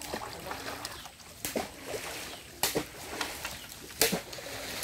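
Creek water splashing as people wade through it, with three sharp splashes about a second and a half, two and a half and four seconds in, and faint distant voices underneath.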